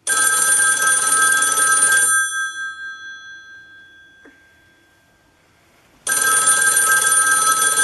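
Old rotary telephone's bell ringing: two rings of about two seconds each, the second starting about six seconds in, the bell tones dying away slowly after the first.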